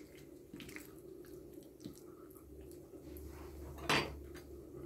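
Faint wet squishing of raw, seasoned boneless chicken thigh being handled and spread flat on a plate by hand, with one sharper click about four seconds in.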